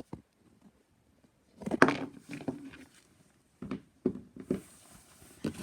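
Toy animal figures being handled and set down: a short clatter about two seconds in, then a few separate knocks.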